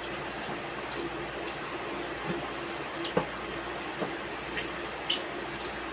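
People eating at a table: a handful of short, light clicks and taps from utensils and mouths, scattered through the second half, over a steady low room hum.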